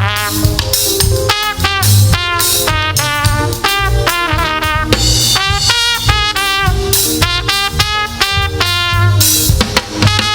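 Live gospel band playing an instrumental passage: horns in short phrases over a steady drum-kit beat with cymbals.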